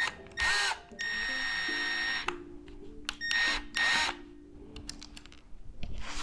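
Small power drill-driver whirring in three short runs, the middle one the longest at about a second, each starting and stopping quickly, over quiet background music.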